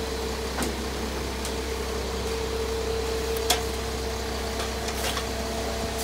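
Concrete agitator truck's engine running steadily with a constant hum while its drum discharges concrete down the chute. A few short sharp clicks or knocks sound over it, the loudest about three and a half seconds in.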